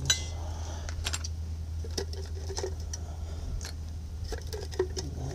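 Scattered light clicks and clinks of small metal parts as a hand rummages in a tin can of brake hardware, over a steady low hum.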